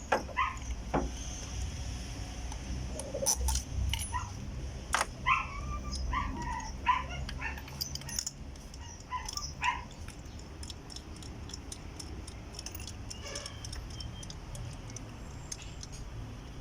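A dog yips and whimpers in short cries through the first part, over light metallic clicks and taps from hand tools, which come thickest in the second half.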